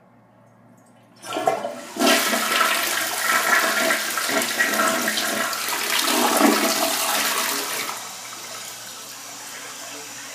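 Crane Plumbing Saratoga tank toilet flushing: the water rush starts about a second in and runs loudly for about six seconds, then drops to a quieter steady hiss as the tank refills.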